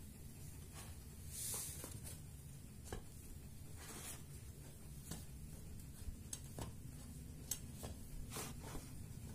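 Faint soft taps and rustles as baked buns are lifted by hand off a metal baking tray and set down on a wire cooling rack, a dozen or so small clicks spread through, over a low steady background hum.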